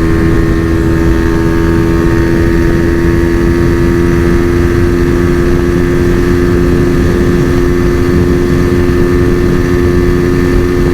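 Single-cylinder four-stroke engine of a Honda Fan 125 bored out to about 170 cc, held wide open in fifth gear at a steady, unchanging pitch, with heavy wind noise on the microphone. The bike is at its top speed, about 160 km/h, and gains no more revs.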